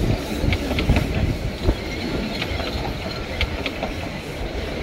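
Narrow-gauge passenger carriages rolling slowly past, wheels rumbling and clicking over the rail joints, with short high squeaks scattered through.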